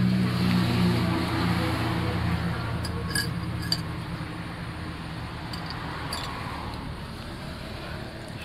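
Metal spoons and forks clinking against ceramic soup bowls, with a couple of sharp clinks about three seconds in, over a low engine hum that fades away during the first few seconds.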